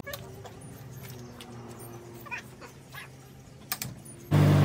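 A few faint squeaks and clicks over a low background hum while a floor jack is worked. Right at the end a vehicle engine cuts in suddenly, loud and idling steadily.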